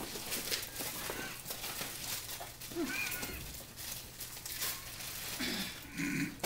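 Paper and plastic packaging rustling and crinkling as items are handled and pulled from a box, with a brief high-pitched call about three seconds in.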